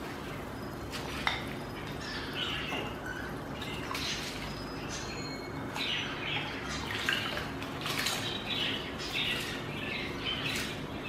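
Pot of water at a rolling boil bubbling while soaked basmati rice is scraped out of a ceramic bowl with a slotted spatula and drops into the water in small splashes. The clicks and scrapes come thicker from about halfway through.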